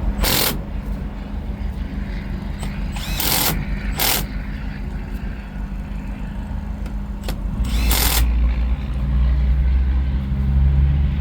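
A steady low mechanical hum with a few short hissing bursts; a deeper rumble comes in about eight seconds in and stays louder.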